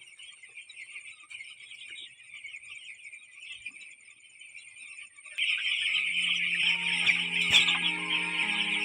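A brooder full of eight-day-old chicks peeping continuously, a dense crowd of high chirps that gets much louder about five seconds in, when background music also comes in.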